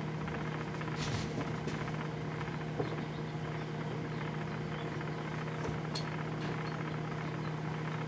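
Sharp Half-Pint microwave oven running with its door shut: a steady hum with a few faint ticks.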